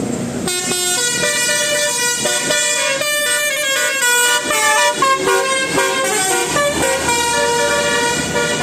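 Basuri telolet multi-tone horn on a bus playing a tune: several horn tones sound together and step from note to note, starting about half a second in.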